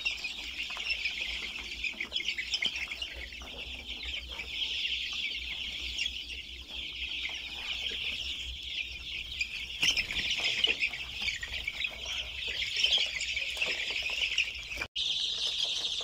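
Continuous high-pitched peeping of a large flock of young chicks crowded together, a dense chatter with no pauses except a momentary drop near the end.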